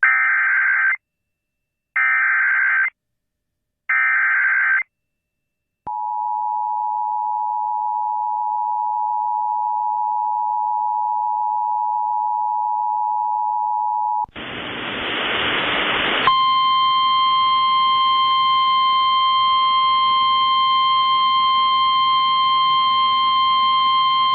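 Emergency Alert System opening: three one-second bursts of SAME digital header data, then the two-tone attention signal held steadily for about eight seconds. A burst of static follows, then a single steady alert tone just above 1 kHz with overtones over radio hiss, the NOAA Weather Radio warning alarm.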